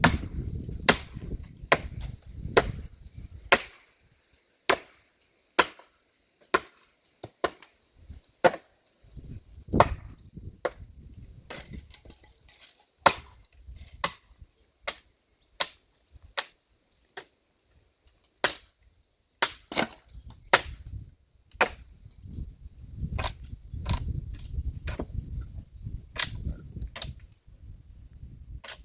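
Wood being chopped with an axe: repeated sharp blows, roughly one a second, some louder than others. A low rumble comes and goes underneath, near the start, around the middle and through the last few seconds.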